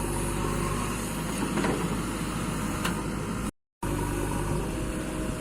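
Engine of construction machinery running steadily with a low hum, broken by a brief gap of silence about three and a half seconds in.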